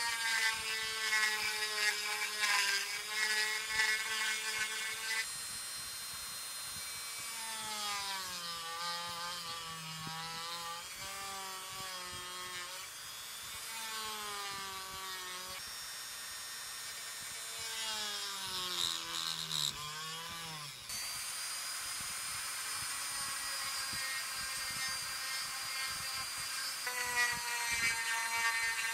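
Handheld rotary tool whining as its bit carves out the window of a white oak saxophone mouthpiece. Its pitch repeatedly sags and recovers as the bit bites into the wood and frees up.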